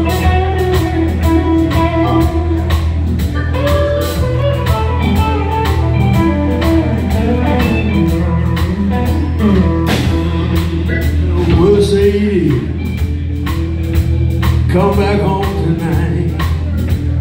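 Live blues band playing: an electric lead guitar with bending notes over a steady bass line, drum kit and keyboard.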